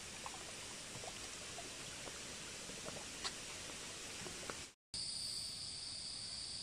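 Soft outdoor background with a few faint taps of flip-flop footsteps on wooden bridge planks. After a brief dropout near the end, a steady high-pitched insect chorus takes over.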